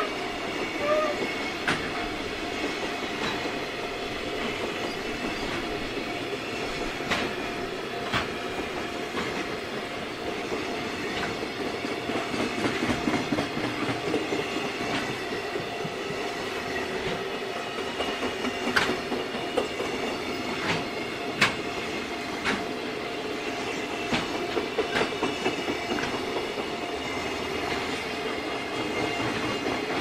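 Freight train of container flatcars rolling past: steady wheel-on-rail rumble with irregular sharp clicks as the wheels cross rail joints.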